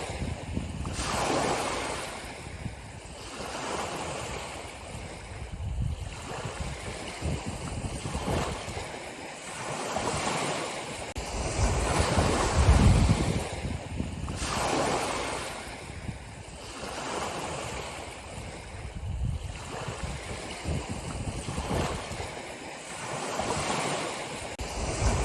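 Ocean surf: waves washing in and drawing back, rising and falling in irregular swells every few seconds, loudest about halfway through.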